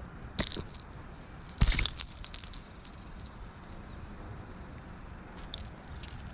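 Short clattering knocks and clicks from unhooking a small bass off a treble-hooked wake bait. The loudest flurry comes about one and a half to two and a half seconds in, with lighter ticks before and after.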